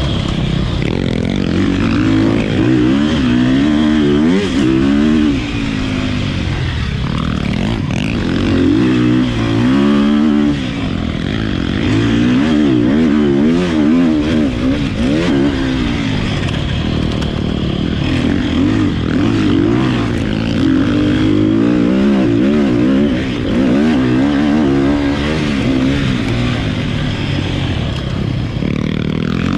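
Sherco dirt bike engine revving under riding, its pitch climbing and dropping again and again as the throttle is opened and closed through the gears.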